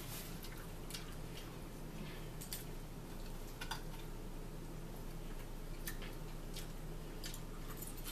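Quiet eating and food-handling noises at a table: scattered small clicks and rustles as a paper napkin and hamburgers are handled, and chewing, over a steady low hum.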